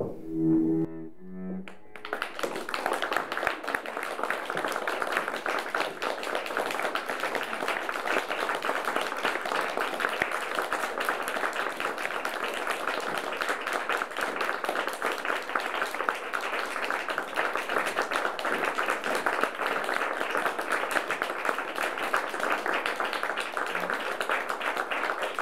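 A few low bowed-string notes end about two seconds in. An audience then breaks into steady applause.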